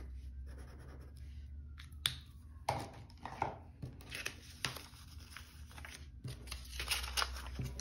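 A pen scratching faintly as it colours in a paper challenge card. From about two seconds in, short crisp rustles and taps as paper bills and a plastic binder sleeve are handled.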